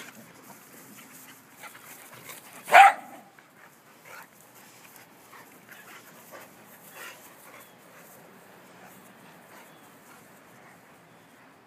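Two dogs play-fighting, with one loud, short bark about three seconds in and faint scattered scuffling noises otherwise.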